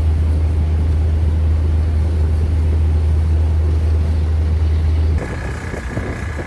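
Loud, steady low engine-like rumble that cuts off abruptly about five seconds in. After the cut comes a quieter passage with a thin, steady high tone.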